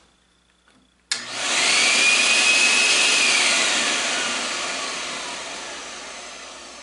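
Vacuum cleaner motor switched on about a second in, starting with a click and a climbing whine, then switched off and spinning down, its whine falling and fading away. It is powered through a freshly repaired switched extension-cord outlet, and the test shows the outlet works.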